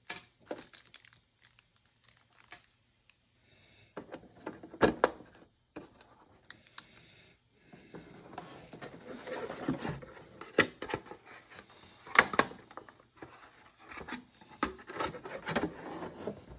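Hands handling a metal GoPro Hero 9 cover and its packaging: scattered clicks and knocks of parts being removed and fitted, with stretches of rustling and crinkling.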